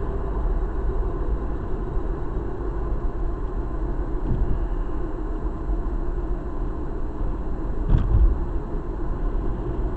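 Car cabin noise while driving at a steady town speed: a continuous low rumble of tyres and engine, with a single short thump about eight seconds in.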